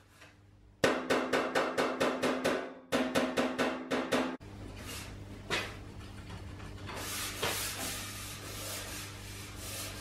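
Rapid hammer blows on a welded sheet-metal panel, hammer-and-dolly work to knock down heat-distortion ridges and high spots. The blows come in two quick runs of about six a second with the panel ringing. For the second half a hand rubs across the metal surface to feel for flatness, over a low steady hum.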